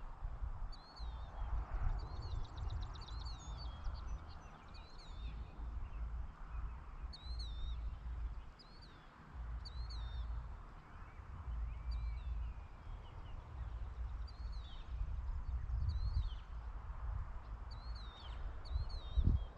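Birds calling outdoors: short, high chirps repeated many times, with a rapid trill about two seconds in, over a fluctuating low rumble.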